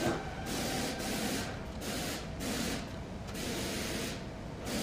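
Sheet-metal door panel of a screw air compressor being handled and set aside: a run of rough scraping and rubbing swishes, each about a second long with short breaks, after a knock as the panel comes free.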